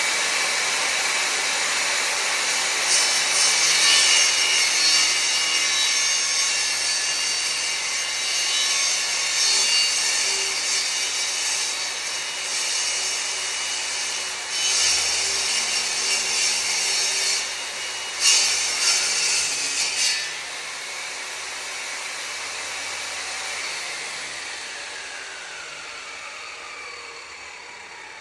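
Table saw running and cutting laminate flooring, with several spells of louder, harsher cutting noise through the first two-thirds. Then the sound eases and the blade winds down in a falling whine near the end.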